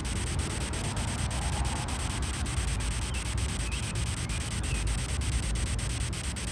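Spirit-box static from the GhostTube ghost-hunting app: a steady hiss chopped by rapid, evenly spaced ticks about eight times a second as it scans, with a low rumble underneath.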